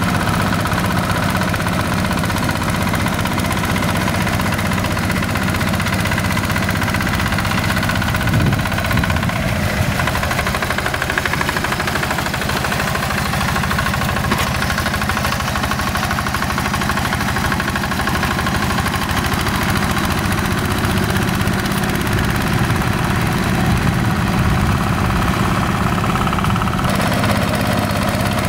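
Yanmar TF85 single-cylinder diesel engine of a Quick G1000 two-wheel hand tractor running steadily under load while it tills a flooded rice paddy.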